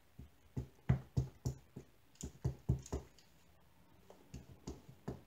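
Light plastic taps and clicks, about four a second, thinning out in the second half, as the tip of a plastic sealer bottle is dabbed over the resin drills of a diamond painting.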